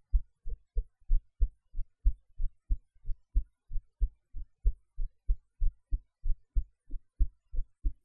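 A woman's heartbeat recorded close at the chest: a steady run of low thumps, about three a second, with the background noise edited out.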